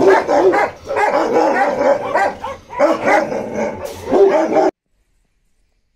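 Several kennel dogs barking rapidly over one another, a dense, continuous din. It cuts off abruptly a little over a second before the end, leaving silence.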